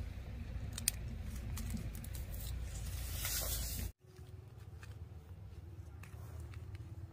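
Soil crumbling, and roots and dry vines tearing, as hands dig a sweet potato out of the ground: crackles over a steady low rumble. About four seconds in it cuts to a quieter stretch with faint taps of a hoe working the soil.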